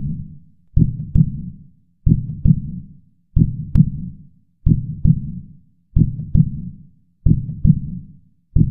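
Heart sounds in a steady lub-dub rhythm, about one pair every 1.3 seconds. The first sound (S1) is the closure of the mitral and tricuspid valves. It is followed about 0.4 seconds later by the second sound (S2), the closure of the aortic and pulmonary valves.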